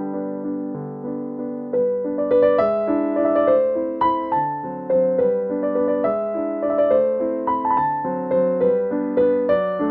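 Background piano music, a melody of single notes over chords, growing louder and busier about two seconds in.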